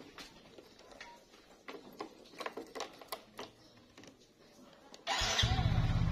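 A few light clicks and taps, then about five seconds in a motorcycle engine starts and runs with a steady low, rapid putter.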